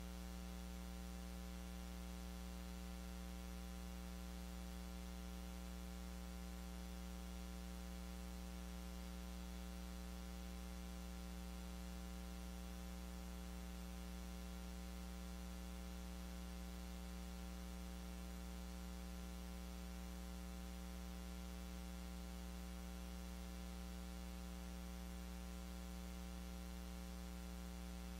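Steady electrical mains hum with a buzzy row of overtones and a faint hiss, unchanging throughout.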